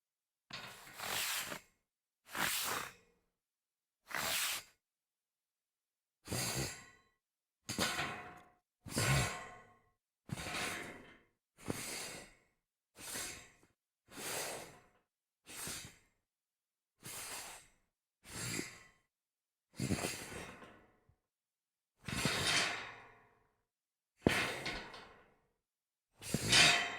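A series of slides across a metal grate: about seventeen separate scrapes, each sharp at the start and fading over under a second to a second and a half, with a faint metallic ring, with silent gaps between them.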